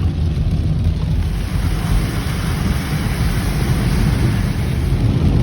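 Steady low rumble of a Ford Escape driving on a wet, icy road: tyre and road noise with the engine.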